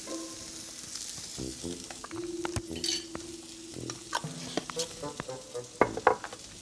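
A butter, white wine and knotweed jelly pan sauce sizzling in a hot pan while a utensil stirs and scrapes through it, with two sharp knocks against the pan near the end.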